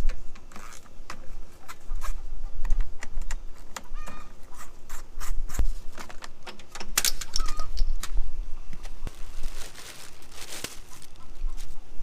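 Irregular clicks, clinks and knocks of hand tools and metal parts being worked on a Honda lawn mower, with a rougher scraping stretch late on. A few short bird chirps sound in the background.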